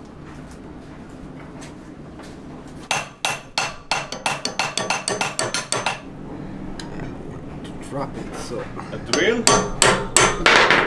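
A small hammer tapping a metal punch against a grinder part clamped in a steel bench vise, metal on metal. A quick run of light taps, about five a second, starts about three seconds in, and after a pause a harder run of strikes comes near the end.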